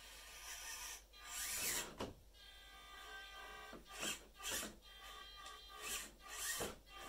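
Electric motor and gear drivetrain of a 1/18-scale FMS Atlas 6x6 RC crawler whirring in a series of short bursts, some rising in pitch, as it is driven at crawl speed.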